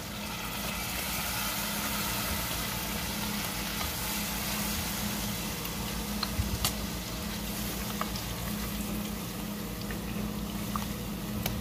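Boiled spinach sizzling steadily in hot oil and spices in a cooking pot, with a few light knocks of a silicone spatula stirring it, over a low steady hum.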